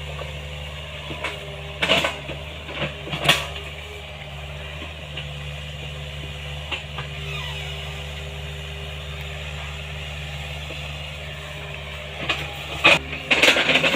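Small Hitachi excavator's diesel engine running steadily while it digs, with sharp knocks and creaks from the working arm and bucket about two and three seconds in and a quick run of them near the end.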